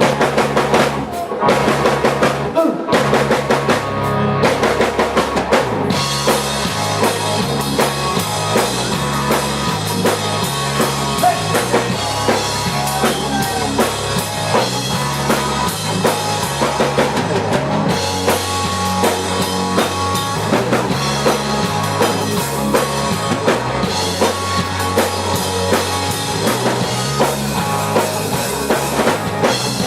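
Live country-rock band playing an instrumental stretch with no singing. Drums and bass carry the first few seconds, and the rest of the band comes in about six seconds in.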